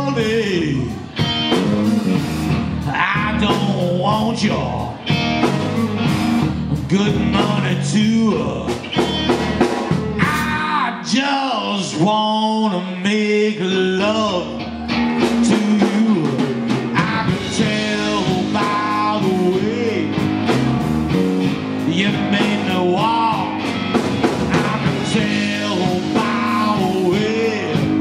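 A live electric blues band playing a slow blues: electric guitar with bending notes over bass guitar and a drum kit. The bass and drums drop back for a few seconds in the middle.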